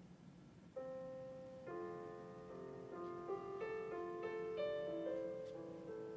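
Gentle background piano music starts about a second in. It begins with a single held note, and more notes join into slow, soft chords.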